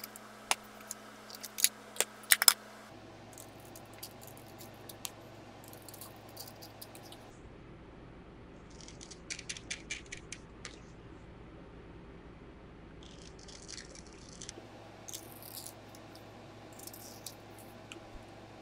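A few sharp clicks and taps as pencils and tools are handled on a wooden desk. Then come short runs of quick scraping strokes as a single-edge razor blade shaves the wood off a graphite pencil.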